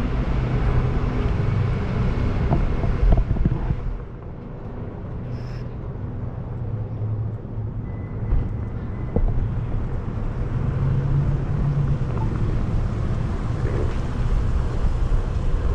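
Wind rumbling on the microphone of a rider on a Onewheel GT electric board, with a low steady hum from the board rolling along. The wind eases about four seconds in, then builds again.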